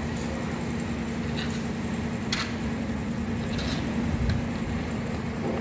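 A steady machine hum, with a few short scrapes of a putty knife working gypsum plaster around a floor light box.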